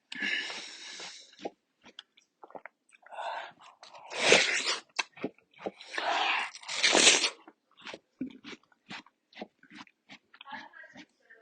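A person biting into and chewing watermelon close to the microphone: about four louder crunching bites, with short chewing and mouth clicks between them.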